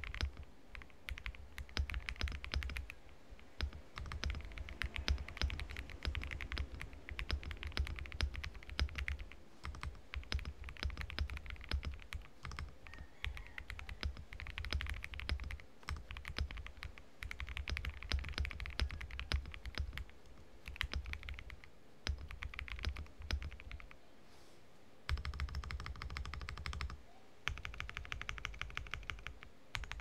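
Typing on a GMK67 mechanical keyboard with lubed Gateron KS3 Yellow linear switches and a one-layer tempest mod: fast bursts of keystrokes with short pauses between them, and a brief lull a little past the two-thirds mark.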